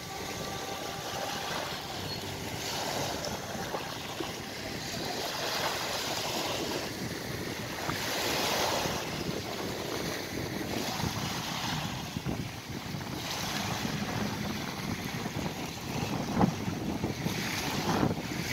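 Small waves washing up a sandy beach, swelling and fading every two or three seconds, with wind on the microphone.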